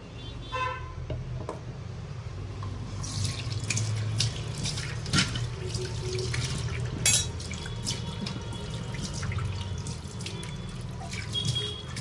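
Kitchen tap running into a sink, with water splashing and a few sharp clinks of items being rinsed.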